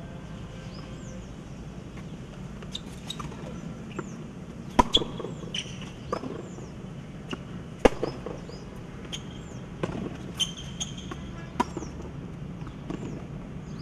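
Tennis balls struck by rackets and bouncing on a hard court in a rally: a string of sharp pocks at irregular intervals, the loudest about five and eight seconds in. Birds chirp with short falling notes throughout, over a steady background hum.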